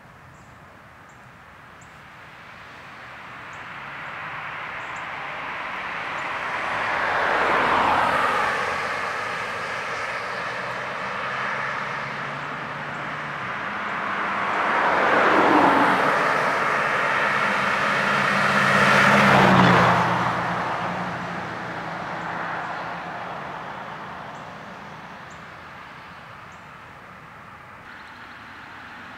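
Cars passing one after another on a two-lane road. Three pass-bys swell up and fade away, loudest about eight, fifteen and nineteen seconds in, each with tyre and engine noise that drops in pitch as the car goes by.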